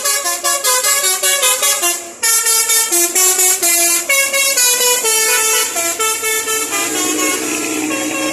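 Indonesian bus telolet horn, a set of musical air horns, playing a quick melody of short stepping notes. It breaks off briefly about two seconds in, resumes with longer notes, and settles into a held tone near the end.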